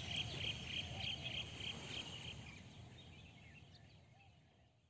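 Open-air ambience: a high chirping call repeated about three times a second over a low rumble, with a few faint chirps lower down. The chirping stops about two and a half seconds in, and the whole sound then fades out.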